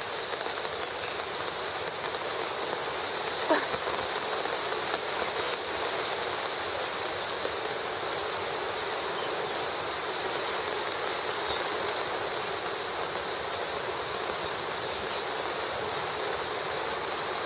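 Heavy rain falling in a steady hiss. A brief sharp sound comes about three and a half seconds in.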